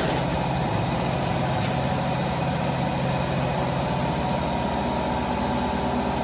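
Hydraulic baling press's power unit running steadily with an even low hum.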